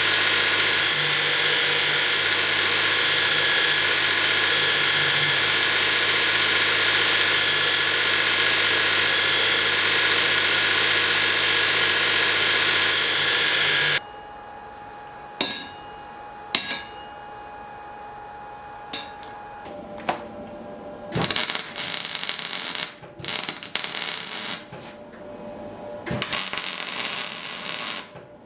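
A workshop power tool runs steadily and loudly, then cuts off suddenly about halfway through. Two sharp metallic clinks with a short ring follow, then quieter scattered handling and scraping noises.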